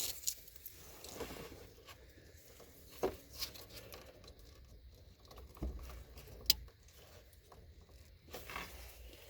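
Light rustling and scattered clicks from hands handling car radio wiring and plastic dash parts, with a few sharper clicks, the sharpest about six and a half seconds in.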